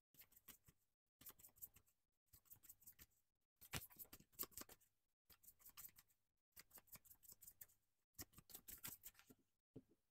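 A deck of tarot cards being shuffled by hand: faint, soft clicking of the cards sliding together, in short bursts about once a second.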